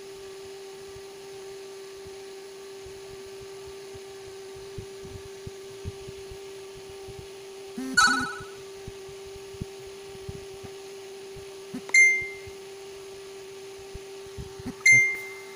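A steady low electrical hum, with faint small handling clicks, a short sound about halfway through, and two sharp short pings that ring briefly, about three seconds apart, near the end.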